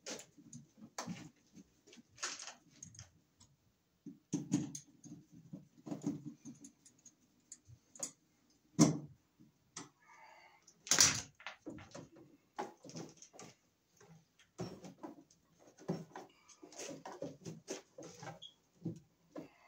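Scattered clicks and rustles of a small hand tool working on the ends of electrical cable, with the cable being handled and pulled.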